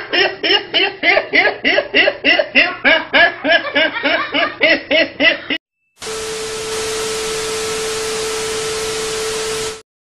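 A boy laughing hard in quick repeated bursts, about three a second. It cuts off just past halfway, and after a short gap comes loud television static hiss with a steady test-tone beep, which stops just before the end.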